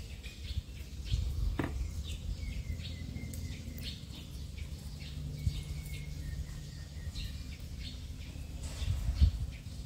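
Faint bird chirps over a steady low background rumble, with a low thump about nine seconds in.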